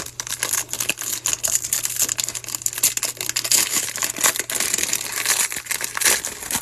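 A trading-card pack's wrapper crinkling as it is torn open and handled: a dense, continuous run of small crackles.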